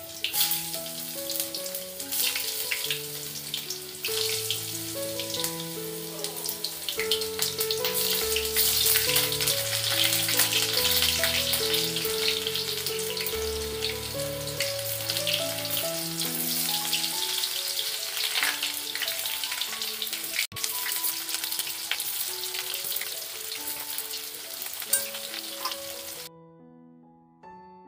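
Sliced onions sizzling and crackling as they fry in hot oil in a steel kadhai, over background music with held notes. The frying cuts off abruptly near the end, leaving only the music.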